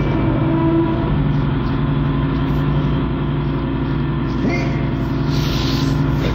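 A steady low drone with several held tones over a rumble, sounding like machinery, with a short hiss about five seconds in.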